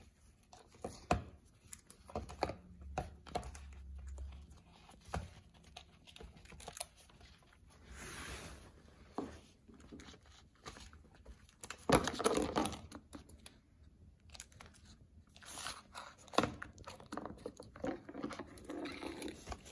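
A young coati chewing and sucking at the rubber nipple of a plastic feeding bottle, shoving the bottle so it knocks and scrapes on the rug and wooden floor: irregular clicks, knocks and crinkling of plastic, with a louder clatter about twelve seconds in.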